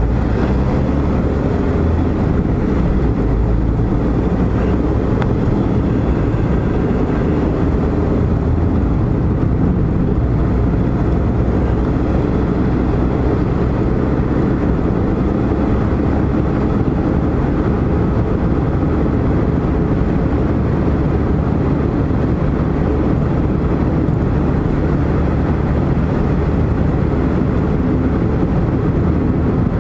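A car being driven, heard from inside the cabin: steady engine hum and tyre-on-road rumble, deep and even throughout.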